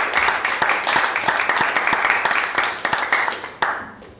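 Audience applauding at the close of a talk, a dense clapping that thins out and dies away near the end, with one last clap about three and a half seconds in.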